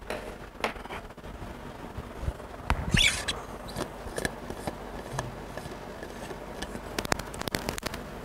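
Small handling noises: scattered clicks and taps, a short scrape about three seconds in, and a quick run of clicks near the end.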